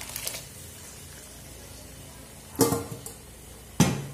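Hot cassava cooking water poured from a pot into a frying pan of stew, a soft steady pour. About two and a half seconds in, cookware clanks with a brief metallic ring, and a sharp knock follows near the end.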